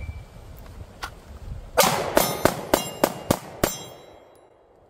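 Seven pistol shots in quick succession, about a third of a second apart, beginning a little under two seconds in, with a brief ringing after the last shot. It is a timed drill string: the seventh shot falls just under four seconds after the shot timer's start beep.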